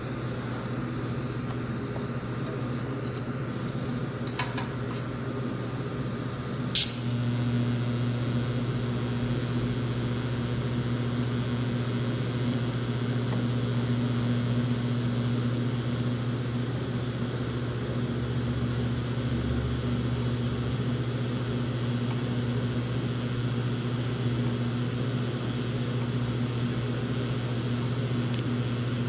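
Miller Syncrowave TIG welder humming steadily. About seven seconds in the arc strikes with a sharp snap, and the hum grows louder and stays steady while a root pass is welded on the joint between two steel pipe sections.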